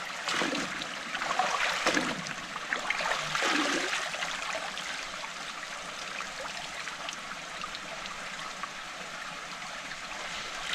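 A small stream running steadily, with irregular splashing for the first four seconds or so as clothes are worked in the water by hand.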